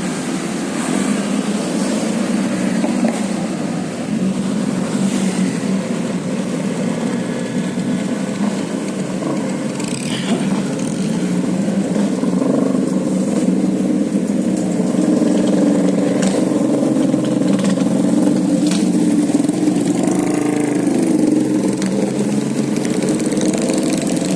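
Motor vehicle engines running steadily with road traffic noise, with a few short sharp sounds now and then.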